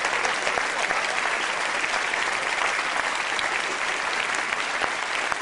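Large studio audience applauding, many hands clapping at a steady level.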